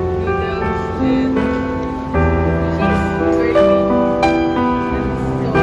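Instrumental background music led by piano, with held notes and bass notes that change about once a second.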